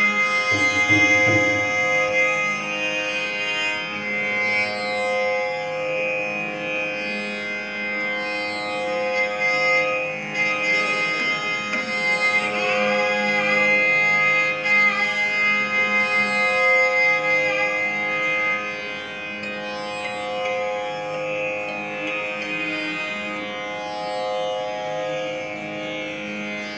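Carnatic music: violin playing a gliding, ornamented melody over the steady drone of a tanpura.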